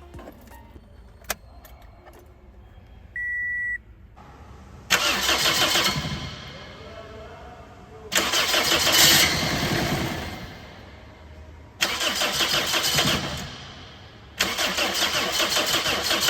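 Toyota Corolla's freshly rebuilt 1ZZ inline-four engine starting and running, heard in four loud stretches that begin abruptly and die down, the last holding steady. A short electronic beep sounds about three seconds in, before the engine.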